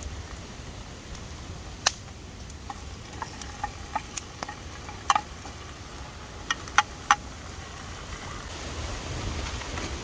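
Steady low rumble of strong wind on the microphone, with about a dozen sharp clicks and light clinks scattered through the middle, the loudest about five and seven seconds in.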